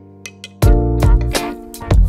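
Background music: held tones with a light ticking beat, then about half a second in the full beat with heavy bass and drums comes in.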